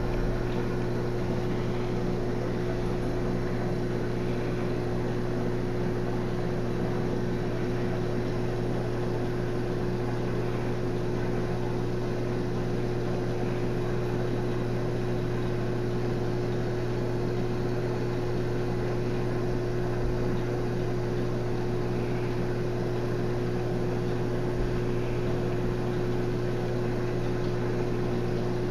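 Aquarium pump running with a steady electrical hum: a low drone and a higher steady tone over a faint hiss, unchanging throughout.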